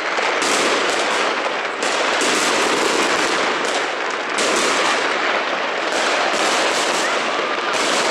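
A dense, unbroken barrage of fireworks and firecrackers: rapid overlapping bangs and crackles with no let-up.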